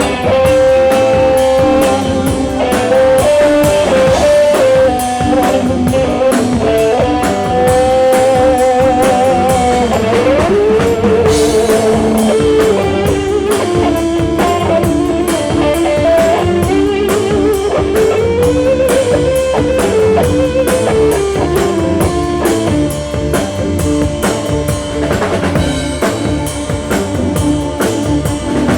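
Rock music: a drum kit keeping a steady beat under a guitar lead line that slides and bends.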